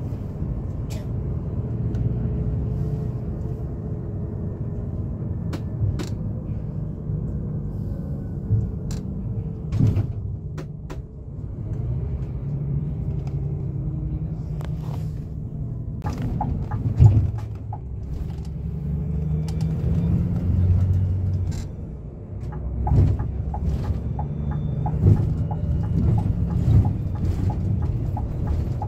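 Steady low rumble of a Scania K360iB coach on the move, engine and road noise heard from inside the cabin, with scattered clicks and knocks throughout.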